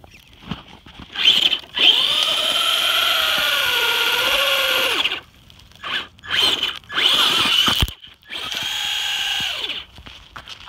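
Traxxas Rustler RC truck's electric motor and drivetrain whining in throttle bursts as it climbs a rubble pile: one long run of about three seconds with the pitch rising and falling, a few short blips, a sharp click, then another steady run near the end.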